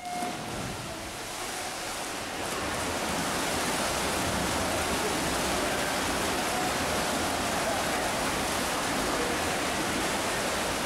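Swimmers racing freestyle: a steady wash of splashing from kicks and arm strokes, growing louder about two seconds in and then holding steady. It opens with the tail of the electronic start signal.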